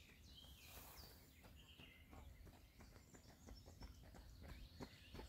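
Faint open-air ambience: a few small birds chirping with quick falling calls in the first couple of seconds, then soft footsteps that become more frequent toward the end, over a low wind rumble.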